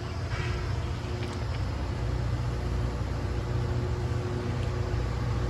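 Diesel engines of a LORAM rail grinder running, a steady low rumble with a faint hum above it.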